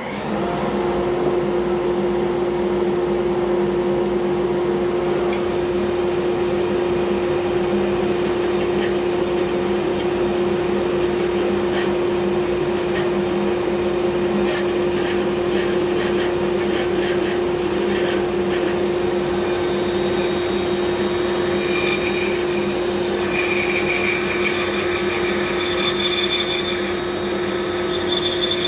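Bandsaw running steadily with a constant motor hum while its blade cuts through thick wood for a bandsaw box; higher-pitched ringing tones come in after about twenty seconds.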